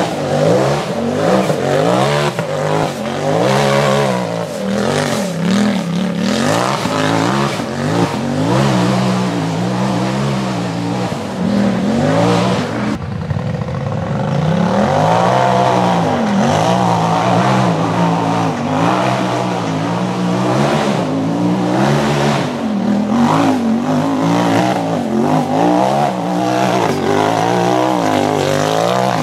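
Off-road race buggy's engine revving hard under load on a rocky hill climb, its pitch rising and falling again and again.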